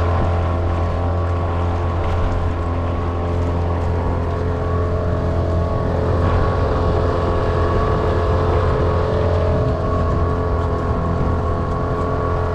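Yamaha two-stroke outboard motor running steadily at a constant speed, pushing a small aluminium jon boat over the water. It holds an even, unbroken note throughout, running rock solid.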